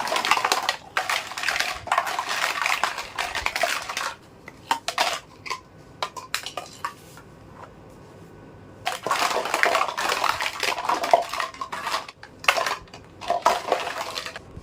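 Small plastic toy kitchen pieces being handled, clattering and rustling in two long stretches with a few separate clicks between them.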